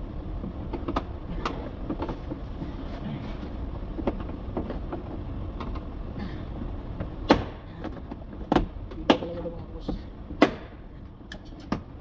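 Sharp snaps of plastic retaining clips popping loose as a 2011 Audi A5's interior door panel is pried off the door, about five separate snaps in the second half, over a steady low background noise.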